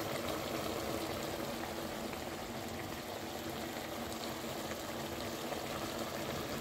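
Thick curry simmering in a wok, bubbling steadily.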